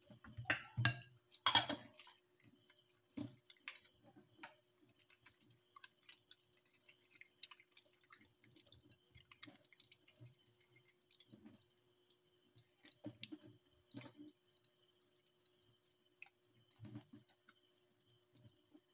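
Dishwashing in a stainless steel sink: ceramic bowls and plates knocking together, a thin stream of tap water dripping and splashing, and a brush scrubbing a bowl. The loudest clatters come in the first two seconds, then smaller knocks and clicks.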